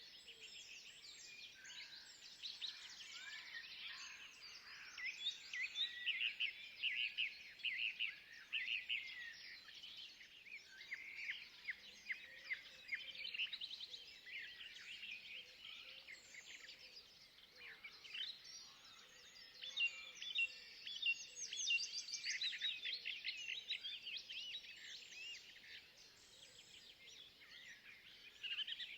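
Forest songbirds chirping and trilling, many short calls overlapping one another, with bursts of rapid, louder chirps about a third of the way in and again past the middle, over a faint steady background hiss.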